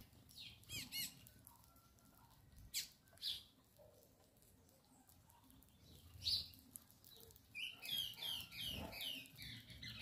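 A flock of small seed-eating birds at a grain feeder giving short, high chirps: a few scattered calls in the first half, then a quick run of down-slurred chirps, about three a second, near the end.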